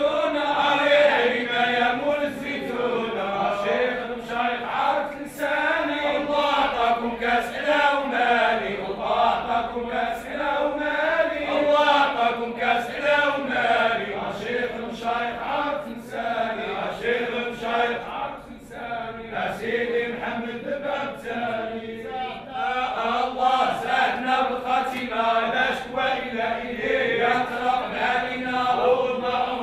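A man chanting an Arabic Islamic supplication into a microphone: an unaccompanied, melodic chant that carries on without a break, with a short dip about two-thirds of the way through.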